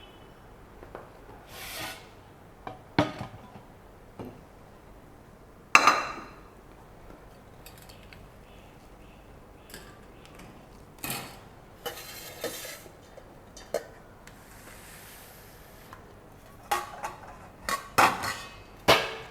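Kitchenware being handled and set down: scattered, irregular clinks and knocks of pans and dishes. The loudest comes about six seconds in, with a quick cluster near the end, and there is a soft scraping sound lasting about two seconds past the middle.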